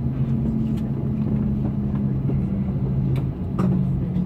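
Steady low cabin hum inside a parked Airbus A330-200, with a tone that slowly falls in pitch, and scattered light clicks and knocks.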